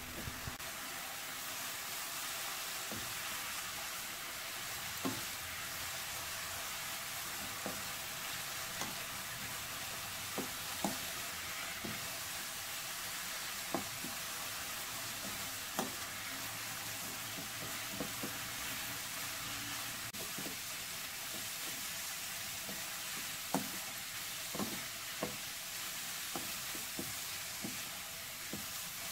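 Julienned burdock root sizzling in a soy-sauce and sugar glaze in a nonstick wok, stirred with a spatula that knocks and scrapes against the pan every second or two.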